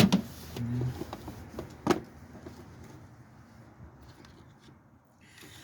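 Two sharp clicks or knocks about two seconds apart, from parts or tools being handled, with a brief grunt between them; then only a low, steady background.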